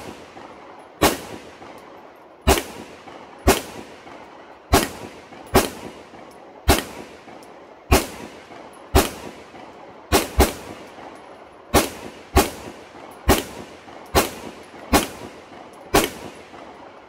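Canik SFx 9mm pistol firing sixteen shots at a steady pace of about one a second, with a quick double near the middle. Each shot rings out briefly before the next.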